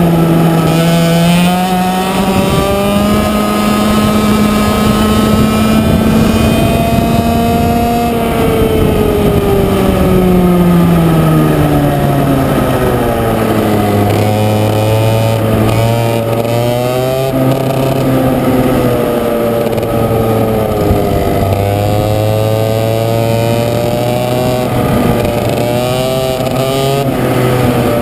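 100cc two-stroke kart engine at race speed, heard from the driver's seat. It holds a high, steady note, drops in pitch from about eight to thirteen seconds in, then runs lower and slowly climbs again with a few short dips as the throttle is eased and reapplied.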